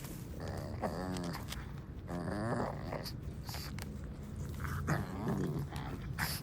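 Pug puppy growling playfully in three short bouts while playing with a toy, with small clicks in between.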